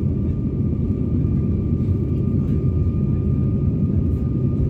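Cabin noise of an Airbus A321-231 climbing after takeoff: its IAE V2500 turbofans under climb power give a steady, even rumble with a faint high steady whine on top.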